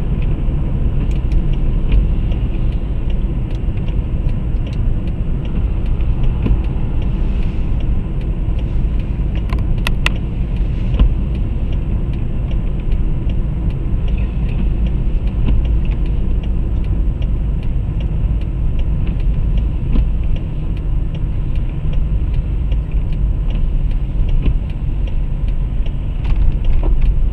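A car driving at road speed, heard from inside the cabin: a steady low rumble of tyres and engine with a few faint ticks.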